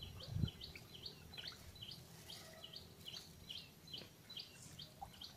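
A small bird chirping over and over, about three short high chirps a second, with a soft low thump about half a second in.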